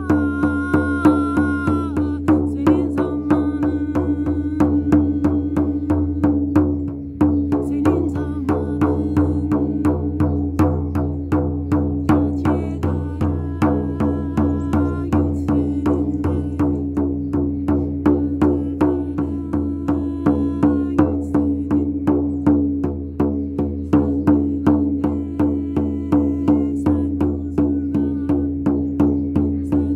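Meditative music: a drum beaten in a steady, even rhythm over a sustained low drone, with short held tones coming and going above it.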